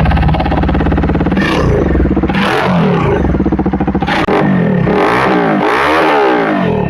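Bajaj Dominar 400's single-cylinder engine through an SC Project slip-on exhaust, held steady at about 2000 rpm for roughly two seconds. It is then revved in a run of quick throttle blips, the pitch rising and falling with each, coming faster near the end.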